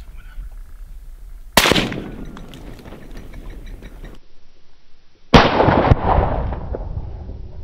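Two hunting-rifle shots: a sharp crack about a second and a half in, then a louder one about five seconds in. Each trails off in a rolling echo.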